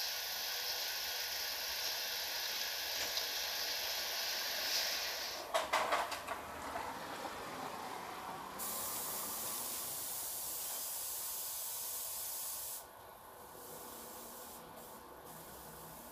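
A steady hiss with a quick cluster of clicks about five and a half seconds in; the hiss turns thinner and higher a few seconds later, then drops quieter near the end.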